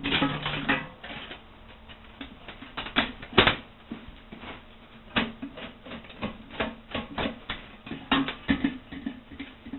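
Galvanized steel pipe knocking and rattling against the rim and inside of an old steel Freon cylinder as it is worked into place: a string of irregular light clicks and taps.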